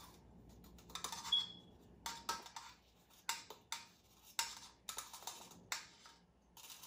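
About a dozen light, irregular clicks and taps of a kitchen utensil against bowls and containers, one with a short high clink just over a second in.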